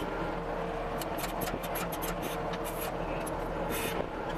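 CASE TR270B skid steer's diesel engine running steadily, with a run of sharp metallic clicks and scrapes between about one and four seconds in.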